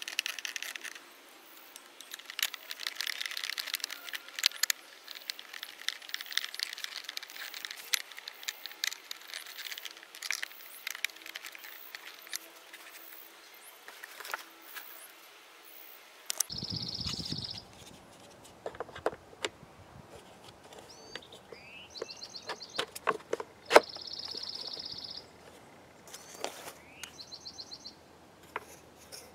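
Small clicks, taps and rattles of plastic pressure-washer parts being handled and fitted together by hand. In the second half a bird sings short, fast, high trills several times.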